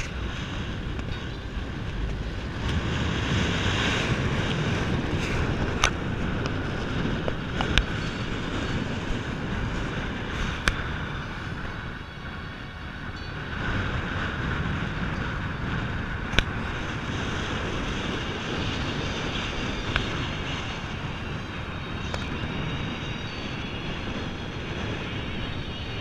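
Wind rushing over the microphone of a bike-mounted action camera on a fast road-bike descent, mixed with tyre and road noise. It eases briefly about halfway through, and a handful of sharp clicks or knocks break in at irregular moments.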